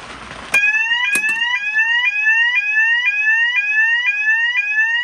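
Fire alarm sounder on a demo board in alarm after its manual call point is activated. It comes on with a click about half a second in and sounds a really loud repeating rising sweep tone, about two sweeps a second.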